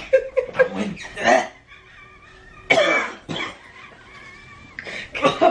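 Coughing fits mixed with laughter, in short sharp bursts with the strongest about 2.7 s in. The coughing is from spicy seafood-boil sauce catching in the throat.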